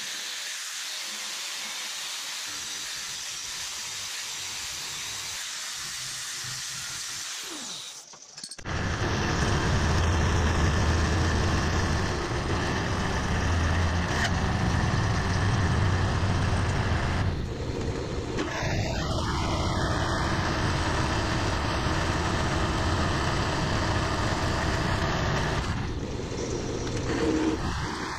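An angle grinder grinds a steel bar with a steady hiss. About eight seconds in, a milling machine takes over, louder, with a steady low drone as its end mill cuts into a metal plate.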